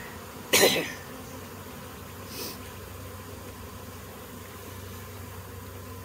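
Honey bee swarm buzzing steadily as the bees crawl into a hive box. A brief cough-like sound from a person is heard about half a second in.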